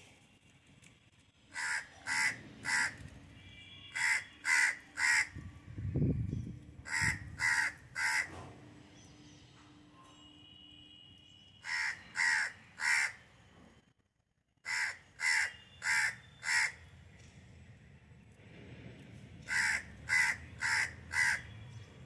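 A crow cawing in short series of three or four caws, six series a few seconds apart, with a low thump about six seconds in.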